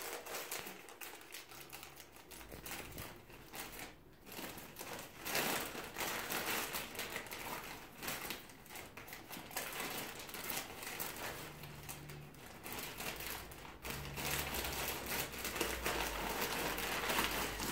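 Plastic mailer bag crinkling and rustling in irregular bursts as it is handled and cut open with scissors.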